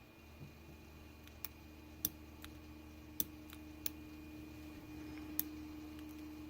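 Sharp small metal clicks and taps, about six of them at uneven intervals, as pins and springs are worked out of a lock's pin chambers. A faint steady hum runs underneath.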